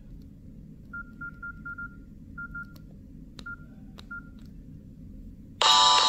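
Nokia N72 keypad key tones: about nine short, single-pitch beeps as the ringtone list is scrolled, with a few faint clicks among them. About half a second before the end, a ringtone preview cuts in loudly: music with a synthesized singing melody.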